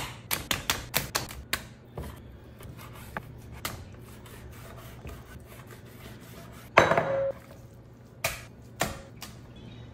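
Chef's knife cutting raw pork belly on a wooden cutting board: a quick run of sharp taps as the blade meets the board, then occasional strokes, with one louder clunk about seven seconds in.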